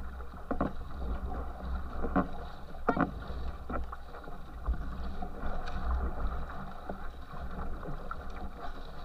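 Water rushing and churning along the hull of a racing canoe under way, with sharp splashes of paddle strokes now and then.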